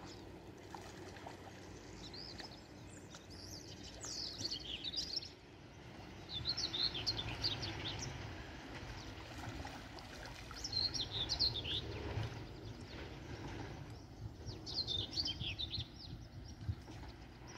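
A songbird singing in short bursts of quick, high, twittering notes, about four phrases a few seconds apart, over a steady low rushing noise.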